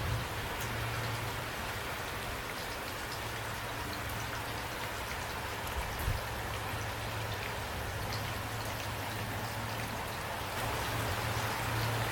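Steady rain falling, with many small drops ticking over an even hiss and a low rumble underneath. A single brief thump about six seconds in, and the rain grows slightly louder near the end.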